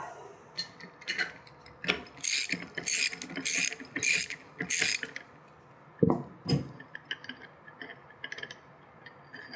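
Socket ratchet wrench clicking through five back-strokes, a bit more than half a second apart, while loosening the center bolt of a steel core chuck. About six seconds in come two dull knocks as the wrench is set down, then faint light metal ticks.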